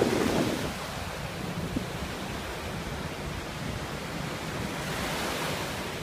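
Small waves breaking and washing up on a sandy beach, a steady surf rush with wind buffeting the phone's microphone, a little louder for a moment at the start.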